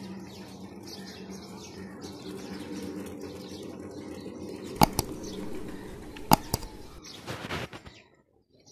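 Small-wheeled rail trolley pushed along the rail, with two sharp double clicks about a second and a half apart; the sound cuts off suddenly near the end.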